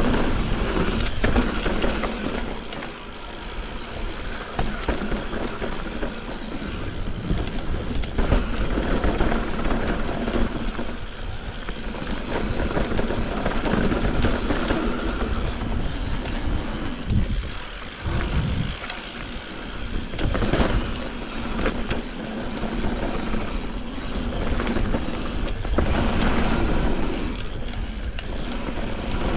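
Mountain bike descending a dirt bike-park trail: continuous tyre noise over dirt and stones with constant rattling and knocks over bumps, and wind rumbling on the microphone.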